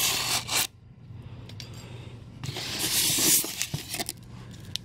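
A styrofoam packing case being handled and slit open: foam scraping and rubbing with a tearing hiss of packing tape, loudest right at the start and again about three seconds in, with a few small clicks.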